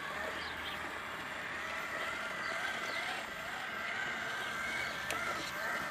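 Electric drive motor and gearbox of a radio-controlled Pegaso lorry model whining as it drives, the pitch wavering with speed. A single sharp click comes about five seconds in.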